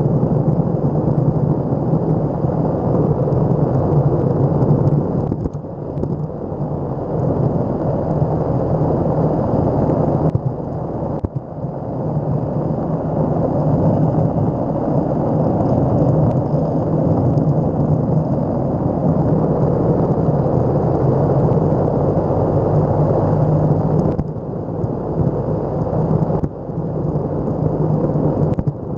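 Wind buffeting the microphone and wheels rumbling over pavement while riding an electric skateboard, loud and steady with a few brief dips.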